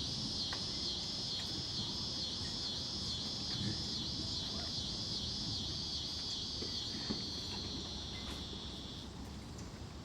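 An insect calling with a high buzz that pulses about twice a second, turns steady, and cuts off about nine seconds in.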